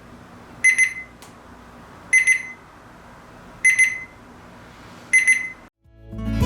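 Digital fridge thermometer's piezo alarm beeping: four short bursts of high-pitched beeps about one and a half seconds apart. This alarm signals a temperature outside the set range.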